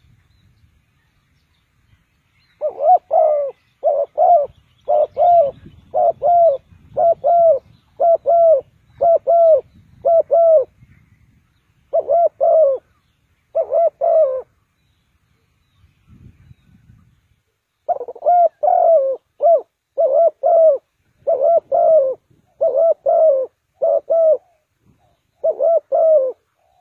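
Spotted dove cooing: a long series of short, repeated coo phrases at about one a second, in two bouts separated by a pause of a few seconds.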